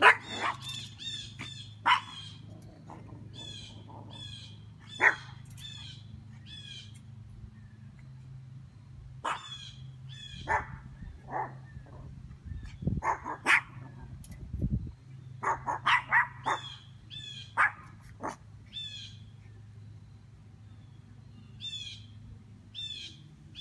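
Small dogs barking in short sharp yaps, sometimes singly and sometimes in quick runs, most often through the middle of the stretch. A bird calls repeatedly in short high downward-sweeping chirps throughout, over a steady low hum.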